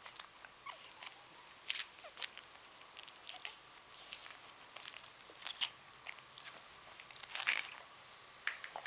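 Shih tzu puppy scuffling and mouthing on a microfiber sofa cushion: irregular light scratches and clicks, with a louder cluster about seven and a half seconds in.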